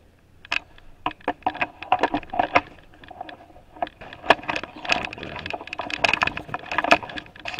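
Camera handling noise close on the microphone as the camera is moved and fitted back onto its stand: a quick, irregular run of clicks, knocks and rubbing that starts about half a second in.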